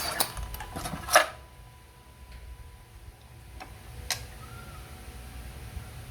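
Scattered sharp clicks and taps of hand work with small tools and parts, the loudest about a second in, over a faint low hum.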